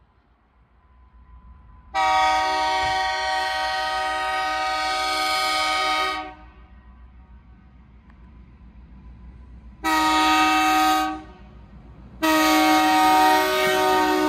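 Diesel locomotive's multi-chime air horn blowing a long blast, a short one, then another long one beginning near the end: the closing part of the grade-crossing signal as the train nears the crossing. A low rumble of the approaching freight train fills the gaps between blasts.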